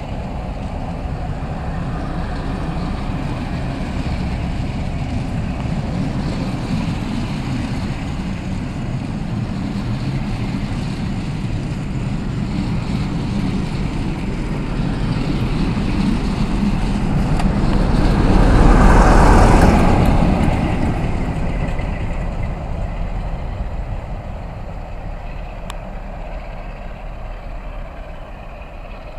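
Train of passenger coaches hauled by Class 47 diesel locomotives running past, a steady diesel engine note with rumble of wheels on rail. It swells to its loudest about two-thirds through, then fades as the train draws away.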